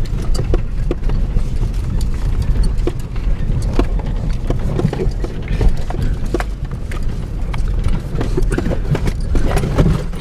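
Vehicle crawling slowly over a rough, potholed dirt road: a steady low rumble with frequent irregular knocks and rattles as it jolts through the holes.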